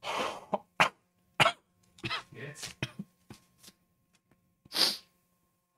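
A man coughing and puffing hard breaths through his mouth, with a long hissing breath near the end, from the burning heat of a Carolina Reaper chili chip he has just eaten.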